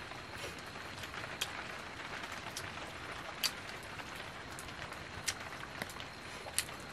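Steady rain, a soft even hiss, with about four sharp clicks spread through it.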